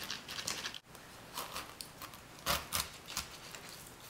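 Knife sawing lengthwise through a whole pineapple's tough rind and leafy crown, giving irregular crunching, scraping strokes, the loudest about two and a half seconds in.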